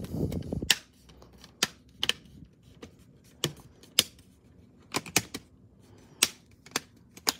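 Plastic clips of an HP Chromebook's screen bezel snapping into place one after another as the frame is pressed around the lid: about ten sharp clicks at uneven intervals, the sign that the bezel is seating. A short low rumble of handling comes at the start.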